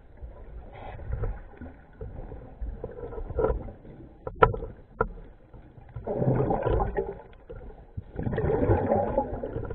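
Scuba diver's regulator exhaust bubbles rushing and gurgling past an underwater camera housing, in breath-length bursts, loudest near the end. Two sharp clicks sound about halfway through.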